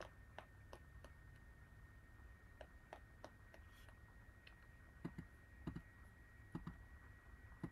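Faint scattered clicking from computer use, with a few sharper, lower clicks from about five seconds in and once near the end, over a faint steady high whine.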